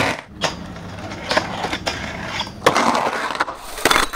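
Skateboard rolling, broken by about five sharp clacks of the board, the loudest about two and a half seconds in.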